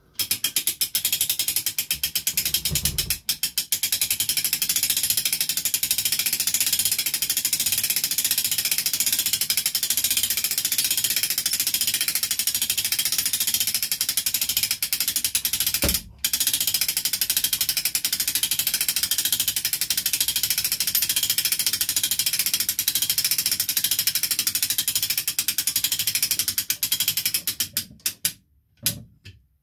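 Ceiling hoist raising a model railway baseboard, its lifting mechanism making a fast, steady ratcheting clatter. It breaks off briefly twice, about 3 and 16 seconds in, and stops near the end.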